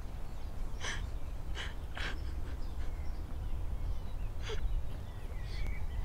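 Wind rumbling steadily on the microphone, with about half a dozen short, harsh sounds breaking over it at irregular moments.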